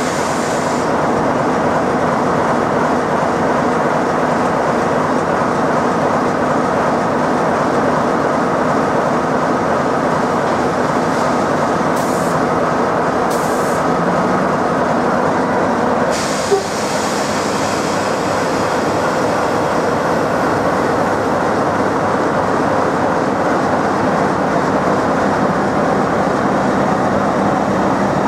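A BR Class 45 'Peak' diesel locomotive's Sulzer twelve-cylinder engine running steadily at close range. A single sharp knock sounds about sixteen seconds in.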